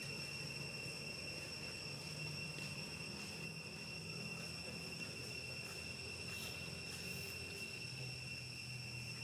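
Cricket trill: one steady high-pitched tone held without a break, over a faint low hum.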